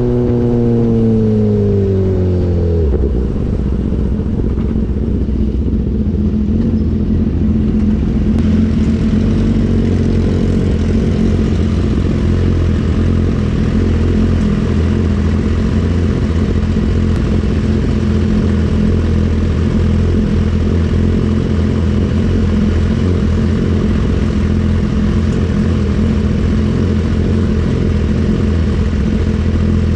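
BMW S1000RR inline-four engine through an Austin Racing GP1R full Inconel exhaust, dropping off a rev over the first three seconds and then idling steadily.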